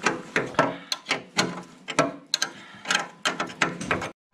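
Ratchet wrench clicking in short, uneven runs as a bolt on a tractor's fender bracket is turned.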